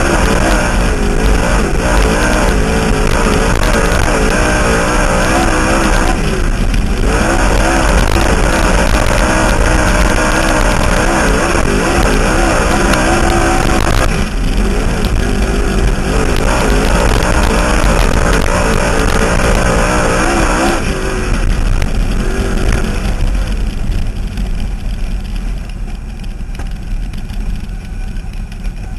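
Dirt-track race car's engine running hard at racing speed, its pitch rising and falling as the throttle comes on and off through the turns, with brief dips about seven and fourteen seconds in. Near three quarters of the way through the engine note drops and gets quieter as the car slows.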